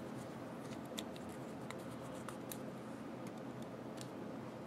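Faint, scattered small clicks and taps of a .50 Beowulf AR-type rifle's steel bolt carrier being handled by hand while a part is worked out of it.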